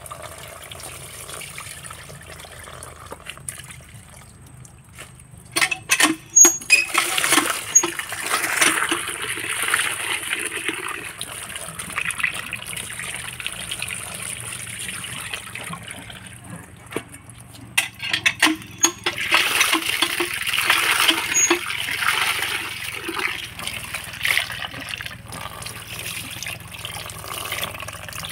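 Water running and splashing into a steel bowl as live crabs are washed by hand, swelling twice as the bowl fills and is tipped out. Two clusters of sharp knocks against the bowl, about a fifth and two-thirds of the way through.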